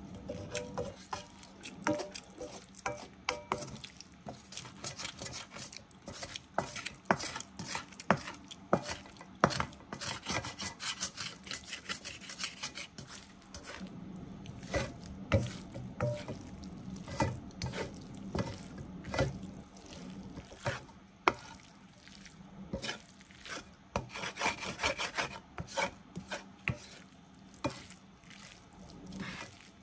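Wooden spatula scraping and tapping against a dark frying pan while stir-frying spaghetti. The strokes are quick and irregular, and the scraping is busiest through the middle and again near the end.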